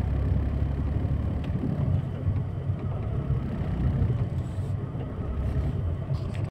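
Suzuki Alto driving along, a steady low rumble of engine and road noise.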